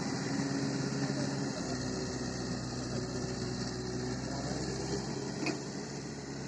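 Tractor engine running steadily, a constant drone whose note shifts slightly about one and a half seconds in.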